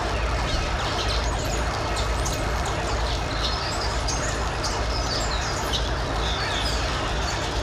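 Many birds chirping, short high calls and quick pitch glides overlapping over a steady background hiss and low rumble.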